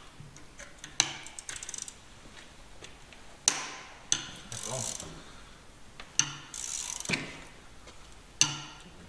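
Ratchet spanner winding off the spring-loaded bolts of a tank clutch's front pressure plate. Sharp metallic clicks come every second or two, with short rasping runs of ratchet clicking between them.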